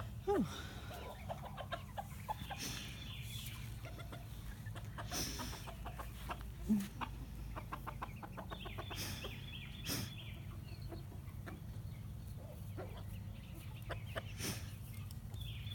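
Backyard chickens clucking softly now and then as they forage, a few short calls scattered through, over a steady low rumble.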